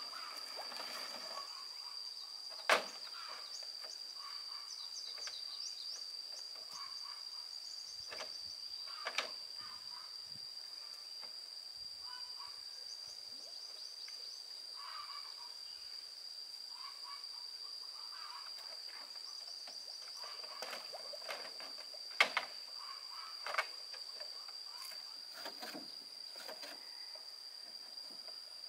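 Hollow bamboo knocks a handful of times, a sharp one about three seconds in and two more past the twenty-second mark, as a bamboo raft is shoved off the bank into the water, with faint scraping in between. A steady high-pitched drone sounds underneath throughout.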